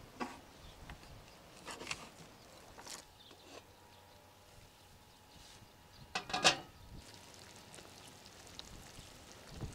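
Metal lid of a cooking cauldron clanking against the pot as it is lifted off, a quick cluster of sharp metallic knocks about six seconds in. A few lighter knocks come before it over quiet outdoor background.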